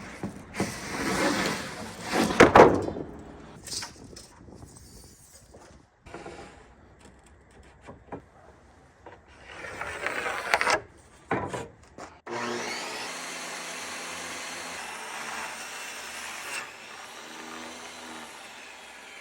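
Wooden sheathing panels being handled, with wood scraping and rubbing in a few loud bursts. A steadier, even sound runs through the last seven seconds.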